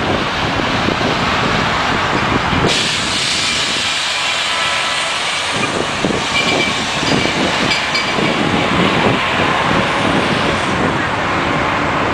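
City transit bus turning and passing close by, its engine running, with a loud hiss that comes in suddenly about three seconds in and lasts several seconds, over steady street traffic.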